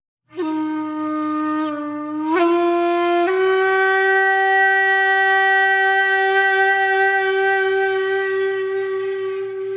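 Background music: a solo flute-like wind instrument plays a note that bends a couple of times, then steps up to a long held note with a slight waver.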